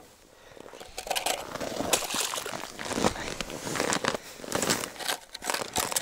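Slushy snow crunching and scraping under gloved hands and the plastic base of an ice-fishing tip-up as it is set down over the hole. The crackling starts about a second in and goes on in irregular bursts of scrapes.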